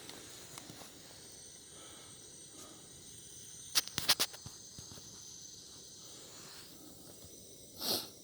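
Wood bonfire burning with a faint steady hiss, a quick cluster of sharp crackling pops about four seconds in and one louder short pop near the end.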